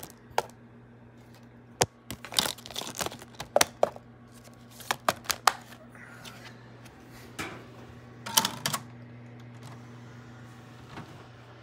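Plastic disc cases clicking and clattering as they are handled and opened: a run of sharp, separate clicks and clacks, thinning out after about nine seconds, over a steady low hum.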